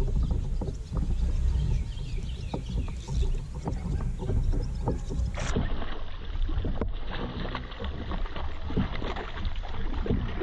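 Wind rumbling on the camera microphone, with scattered sharp clicks and the splashing of a hooked bass thrashing at the surface as it is reeled in.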